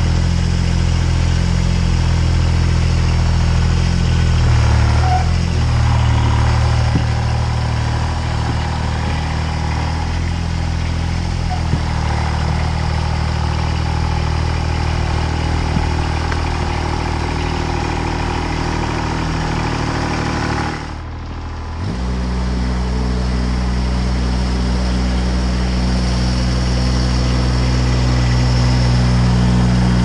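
A combustion engine running steadily. About two-thirds of the way through the sound briefly drops away, then comes back at a different pitch.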